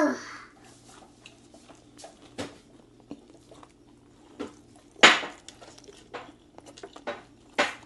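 Close-up eating sounds: chewing crispy fried naem and sticky rice, with scattered crunchy clicks and crackles, the loudest about five seconds in.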